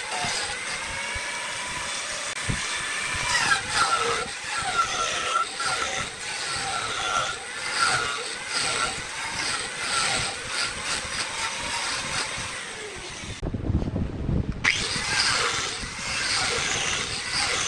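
Electric angle grinder with a shaping disc running and grinding into wood, its motor whine wavering in pitch as the disc bites and eases. About thirteen seconds in, the grinding drops out for about a second, leaving only a low rumble, then starts again.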